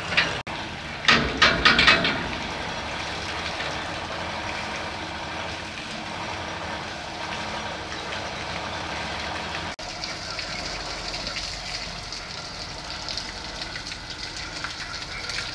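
A motor runs with a steady drone while flushing water pours and splashes out of a tanker's outlet pipelines. A few sharp clatters come between about one and two seconds in.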